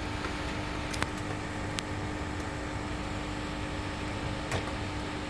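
Steady fan hum with a constant low tone, typical of a hot-air rework station's blower or a bench extractor, with a few faint clicks.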